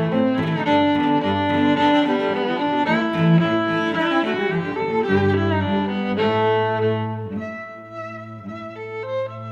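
Background music played by bowed strings, violin and cello, with sustained notes changing pitch; it thins out and gets quieter for the last couple of seconds.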